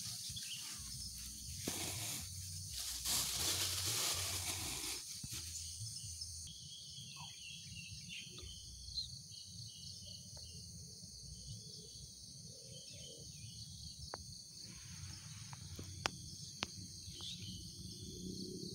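Outdoor ambience: rustling for the first several seconds, then quieter, with faint insect and bird chirps and a few sharp clicks over a low steady rumble.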